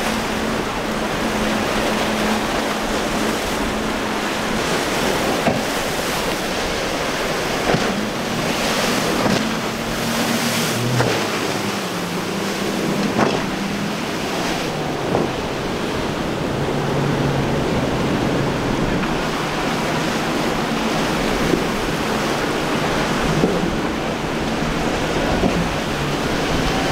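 Outboard boat engines running through rough inlet water, a low drone that shifts in pitch under the steady rush of waves and spray, with wind on the microphone. There are brief louder surges now and then.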